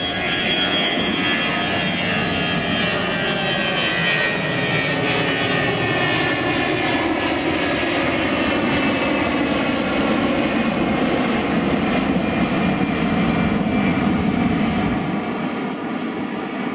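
Twin-engine jet airliner climbing out after take-off, its engines giving a loud, steady roar with high whining tones that slowly fall in pitch as it flies away.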